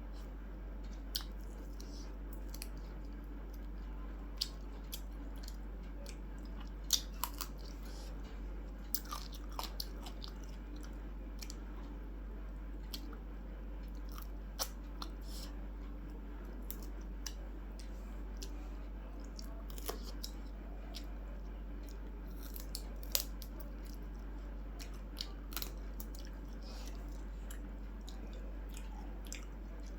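A person eating close to the microphone: chewing and biting, with scattered short clicks and smacks.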